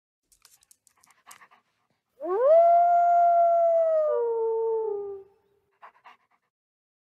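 A single wolf howl from Google's 3D AR wolf model: it rises quickly to a held note for about two seconds, then drops in steps and fades, lasting about three seconds. A few faint short sounds come before and after it.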